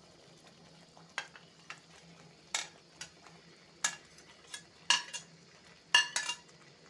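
A metal spoon clinking and scraping against a ceramic plate as cubed vegetables and peas are pushed off it into a pan. About ten sharp clinks come irregularly, the loudest about five and six seconds in.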